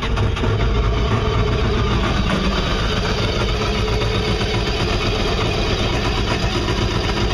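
Yamaha High Output four-stroke jet-boat engine idling steadily just after starting, being run on a garden-hose freshwater flush for winterizing.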